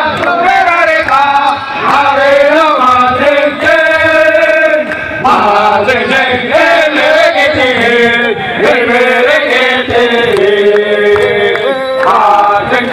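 A large crowd of men chanting and singing together in unison, loud and continuous, with long held notes.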